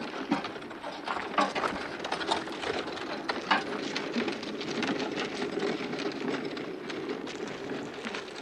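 A loaded handcart rattling and knocking as it is hauled along a paved road, a dense irregular clatter of clicks over a steady rumble.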